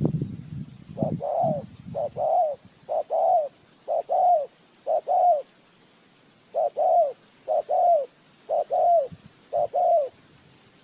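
Spotted dove cooing: a run of about nine two-part coos, each a short note followed by a longer falling note, roughly one a second with a brief pause midway. A low rumbling noise sits under the first two coos.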